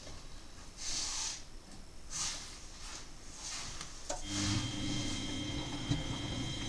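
Miele Novotronic W923 washing machine in its wash phase: the drum motor stops, water swishes in the drum a few times, and about four seconds in the motor starts again with a click and a steady hum as the drum turns the other way.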